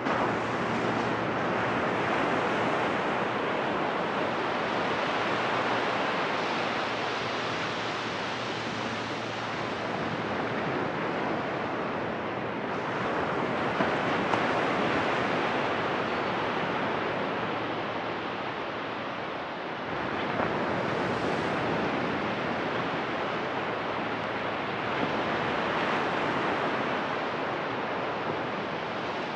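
Ocean surf breaking and washing up a sandy beach: a steady rushing wash that swells and eases every several seconds as the waves come in.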